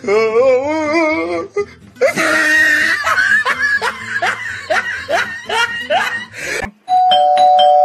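Loud, exaggerated laughter in a run of repeated 'ha' calls over background music. About seven seconds in, the music stops and an electronic doorbell chime sounds in two steady tones.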